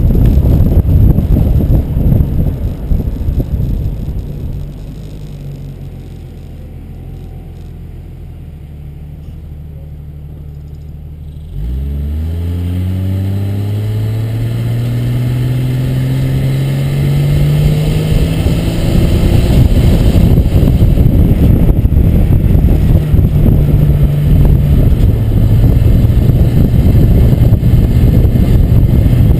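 Vehicle engine and road noise picked up from a camera on a rear-mounted bike rack. It starts with loud wind and road rush, drops to a quieter steady engine hum, then a little under halfway through the engine pulls away with a quick rise in pitch and settles into a steady drone while the wind and road noise build again.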